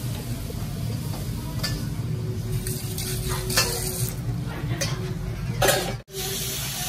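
Stir-frying in a restaurant wok: food sizzling under a steady low rumble, with a metal ladle scraping and clanking against the wok several times and a louder clatter near the end.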